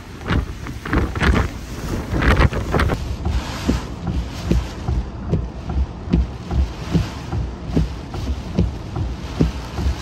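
Hurricane-force wind gusting against the microphone in loud, uneven blasts, which give way to shorter repeated low buffets.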